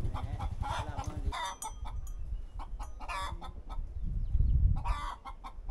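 Chickens clucking, a handful of short calls spread across the few seconds, over a low rumble that fades about a second in and comes back briefly past four seconds.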